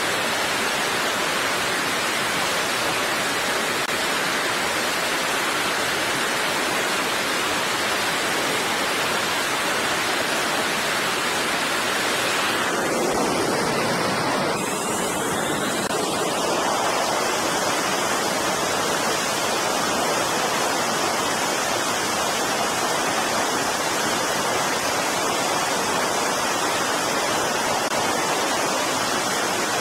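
Jet aircraft engines running on a carrier flight deck: a steady, loud rushing roar. About halfway through the sound shifts, with a brief rising whine, and a steady high turbine whine then holds over the roar.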